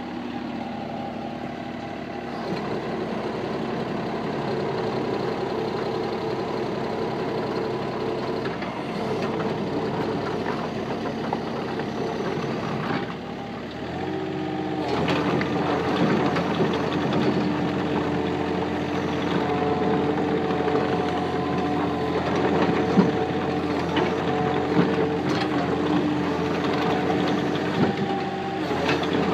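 Takeushi TB135 compact excavator's diesel engine running steadily as the machine is moved and parked. About 13 seconds in the note dips briefly, then comes back louder and fuller and holds steady.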